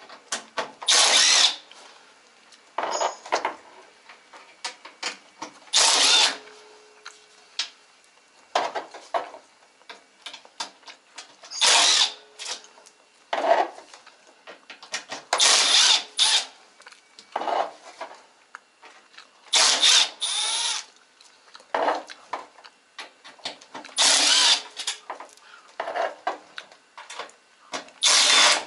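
Power drill-driver run in short bursts of about a second, every few seconds, backing out screws from a washing machine's tub, with small clicks and knocks of the screws and panels between the bursts.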